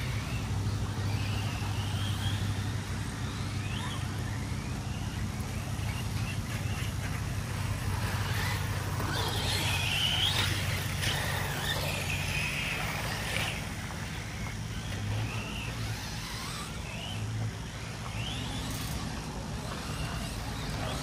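Radio-controlled cars running, their electric motors whining up and down in pitch, busiest about halfway through, over a steady low hum.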